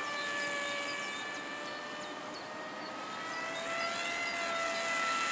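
Model airplane engine running in flight overhead: a steady whine with several pitches that rises slightly in pitch and grows louder near the end as the plane comes closer.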